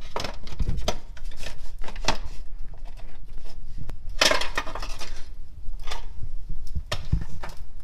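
A loose metal engine valve cover being lifted out of a crowded engine bay, clanking and clinking against brackets, lines and the engine as it is worked free, in a string of sharp knocks with a longer scraping rattle about four seconds in.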